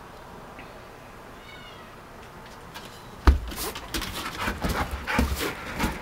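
A pit bull gives one short high-pitched whine about a second and a half in. A sudden loud thump follows about three seconds in, then a run of scuffling and knocks as the dog jumps about in play.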